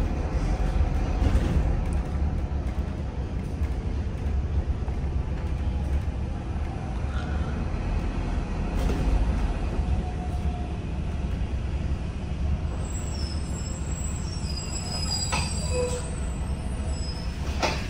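Steady low rumble of a moving road vehicle heard from inside its cabin: engine and tyre noise.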